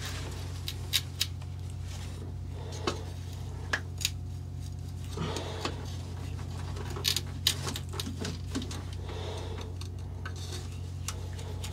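Irregular sharp metallic clicks and short scrapes of a thin metal rod prying in the hole-saw kerf of a fibreglass-and-foam bulkhead, working at the cut plug to break it free. A steady low hum runs underneath.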